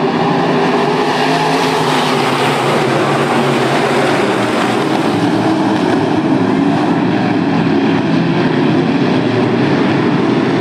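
A pack of IMCA Northern SportMod dirt-track cars racing together, their V8 engines blending into one loud, steady engine noise.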